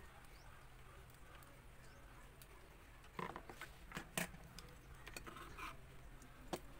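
A few faint clicks and knocks from handling wires and a lamp receptacle, bunched about halfway through with a couple more near the end, over a low steady hum.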